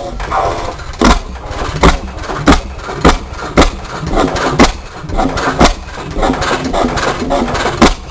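1905 Reid 15 hp two-stroke oilfield stationary engine, running on propane with spark ignition, firing with sharp single exhaust bangs as its heavy flywheels turn. The first fires about a second in, then roughly one to two a second at uneven spacing. Its flyball governor is not yet connected.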